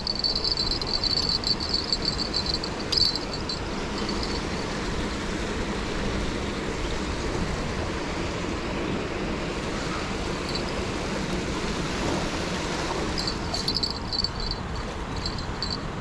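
Steady rushing background noise, with an insect's high, pulsing chirr for the first few seconds that stops and starts again near the end.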